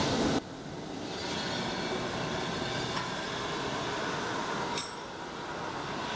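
A blacksmith's forge running with a steady rushing noise, with one small clink about five seconds in.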